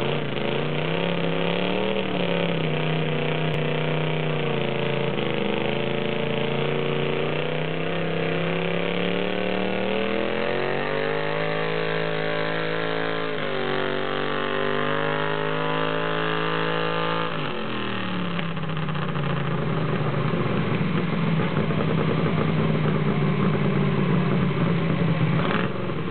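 Hot rod garden tractor engine pulling a weight-transfer sled under load. The engine note wavers at first, then climbs steadily in pitch for about seven seconds, drops suddenly as the throttle comes off about two-thirds of the way in, and settles into steady lower running.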